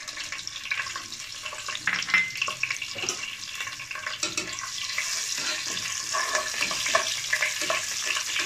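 Whole spices (bay leaves, cinnamon, cardamom, cloves) sizzling and crackling in hot oil in a pot, with clicks and scrapes of a metal spoon stirring them. The sizzling grows louder about halfway through.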